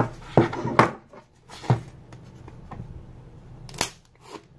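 Handling noise from a styrofoam packing case and a pocketknife: a few short knocks and scrapes as the case is turned and the blade is set to the tape seam, the sharpest one about four seconds in.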